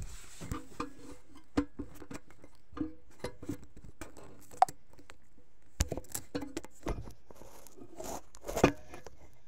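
Irregular clicks, knocks and light scraping of objects being handled and set down, with a few sharper knocks about halfway through and near the end.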